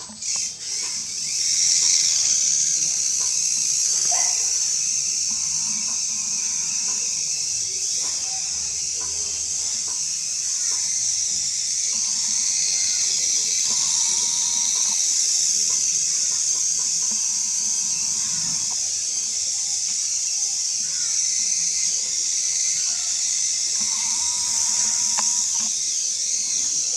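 Tiny motor and gears of a 1:100-scale micro FPV RC car running with a steady high-pitched whine as it is driven.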